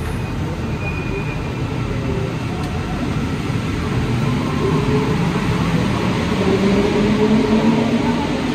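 Alstom NS-93 rubber-tyred metro train running, heard from inside the car. From about halfway through it grows louder with a rising motor whine as the train picks up speed.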